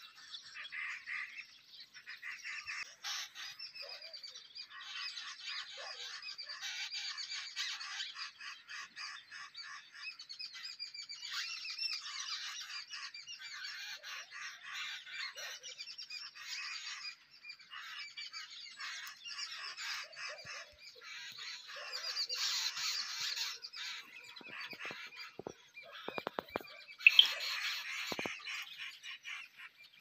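Many wild birds chirping and calling over one another in a steady morning chorus. Near the end come a few sharp clicks and one louder call.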